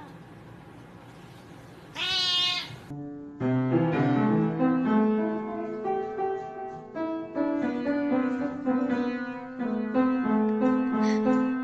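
A cat meows: a short call at the start and a longer, rising-then-falling one about two seconds in. From about three and a half seconds on, piano notes play, several at a time, changing every fraction of a second.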